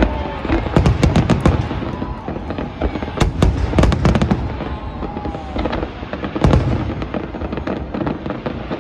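Aerial fireworks shells bursting in quick succession with sharp bangs and crackling. The bangs come in bunches about a second in, around three to four seconds in, and again near six and a half seconds, over a steady rumble.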